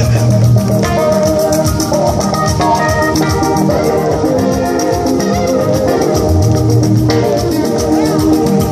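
Loud, upbeat dance music with a fast steady beat and held organ-like keyboard chords.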